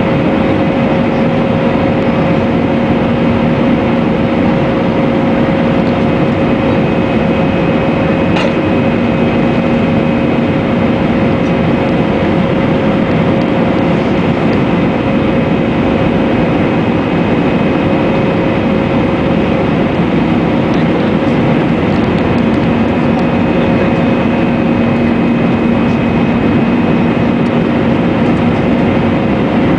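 Cabin noise of an Airbus A319-111 climbing after take-off, heard from a seat over the wing: a steady rush of air with the drone of its CFM56 turbofan at climb power, carrying a few steady hum tones. A single brief click sounds about eight seconds in.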